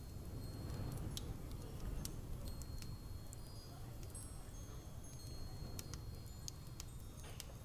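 Room ambience: a steady low rumble under many faint, scattered high tinkles and ticks, like small chimes.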